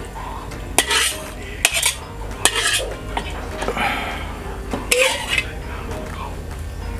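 Spatula scraping and clinking against a wok as stir-fried chicken with holy basil is scraped out onto a plate: a run of short, separate scrapes and taps.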